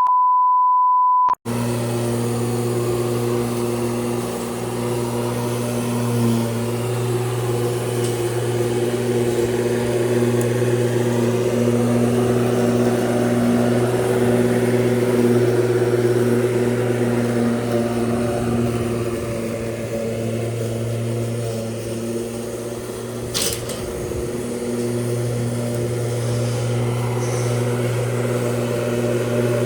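A loud steady beep lasting over a second, then a machine's motor running at an even pitch with a humming tone and a single sharp click about 23 seconds in.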